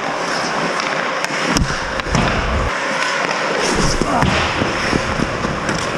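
Ice hockey play on the rink: skate blades scraping the ice, with several sharp clacks of sticks and puck and a few thuds.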